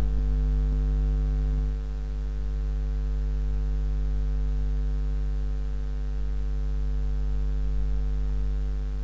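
Steady electrical mains hum: a low buzz with a ladder of overtones, dipping slightly in level about two seconds in.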